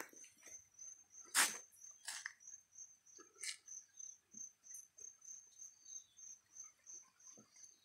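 A cricket chirping steadily, a high, evenly pulsing trill, with a few sharp knocks or clatters of handling, the loudest about one and a half seconds in.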